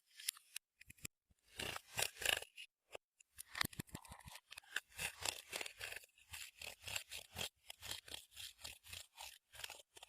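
Clear slime being kneaded and squeezed by hand, giving sticky crackling clicks and squishes. The squeezes fall into a quick, even rhythm of about three a second partway through.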